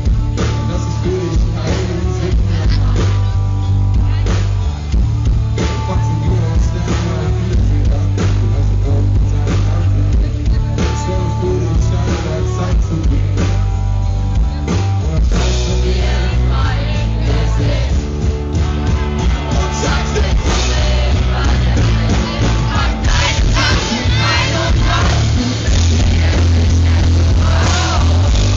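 Rock band playing live and loud, heard from within the audience: drums, heavy bass and electric guitar, with singing over them.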